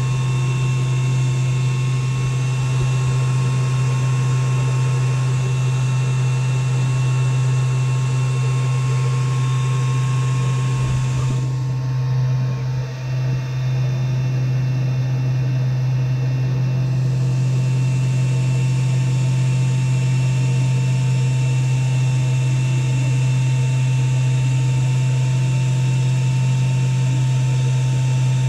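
Exhaust fan and air-assist pump of a diode laser cutter running while the laser cuts through wood: a loud, steady low hum.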